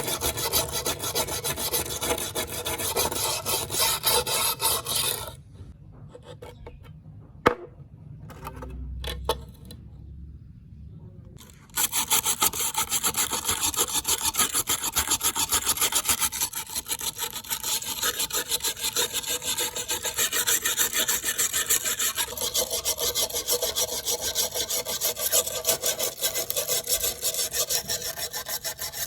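Rapid back-and-forth scraping of a knife blade against an abrasive, worked by hand. The strokes stop for about six seconds after the first five, with a single sharp click in the pause, then start again.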